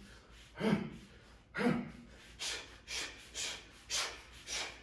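A man's sharp exhales in rhythm with his punches while shadowboxing, seven short hissing breaths; the first two come with a low grunt, then they come about twice a second.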